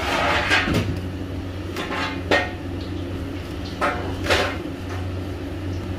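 Hands pressing and rubbing breadcrumbs onto coated eggplant slices in a stainless steel tray: a few bouts of crumbly scraping against the metal, with a light knock on the tray a little past two seconds in, over a steady low hum.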